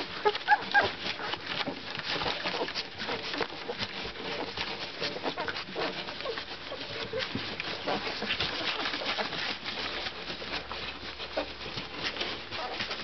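Black Labrador puppies, about two weeks old, suckling at their mother, a dense patter of small wet clicks and smacks, with a few short puppy squeaks near the start.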